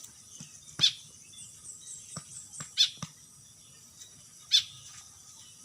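Starling (jalak) giving short, sharp calls, three loud ones about two seconds apart, with faint high chirps in between.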